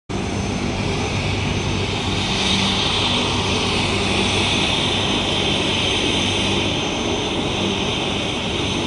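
Air-ambulance helicopter running steadily: a high-pitched rushing whine over a low hum.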